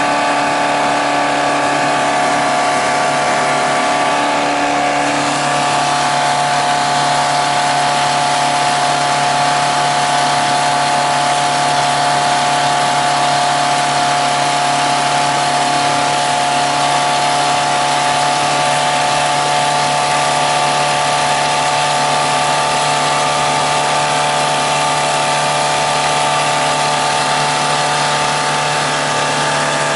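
MerCruiser 140 hp sterndrive boat engine running at a steady speed, its note shifting slightly about five seconds in.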